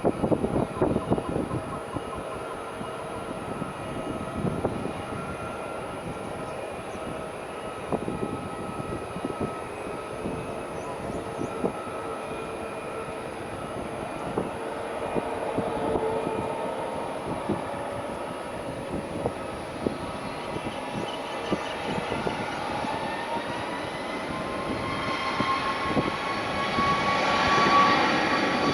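Boeing 737 MAX 9's CFM LEAP-1B jet engines heard at a distance: a steady rumble with a whine that rises in pitch and grows louder over the last several seconds as the engines spool up. Gusty low thumps of wind on the microphone come and go, mostly early on.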